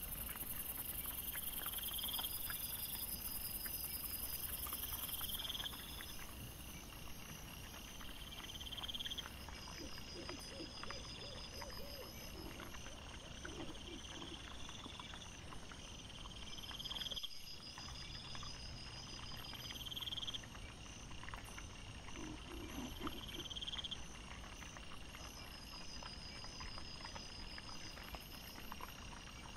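Trail-camera audio sped up fourfold: night insects chirping in a regular repeating pattern over a low steady hiss. Short pitched grunting calls from the foraging wild boar come twice, about ten seconds in and again near twenty-two seconds. Near the middle the sound drops out briefly at a cut between clips.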